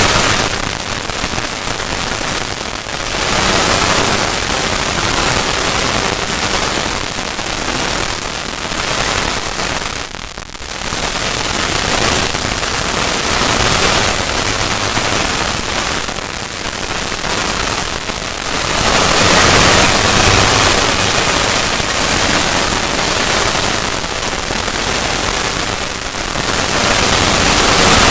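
Distorted, edited noise effect: a dense crackling hiss that swells and fades every few seconds, with a brief dip about ten seconds in and louder stretches past the middle and near the end.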